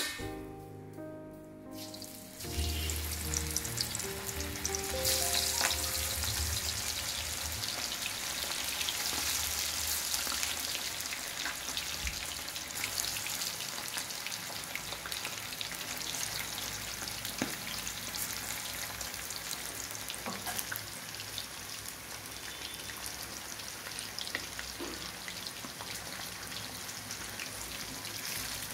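Battered chicken pakodi pieces deep-frying in hot oil in a kadai: a dense, steady crackling sizzle full of tiny pops. It starts about two and a half seconds in, after a brief stretch of background music.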